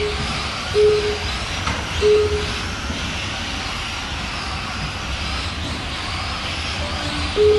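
Two short beeps at one mid pitch, about a second in and a second later, typical of a lap-counting system as cars cross the timing line. Under them is a steady hiss and faint whine of radio-controlled electric trucks running on the track.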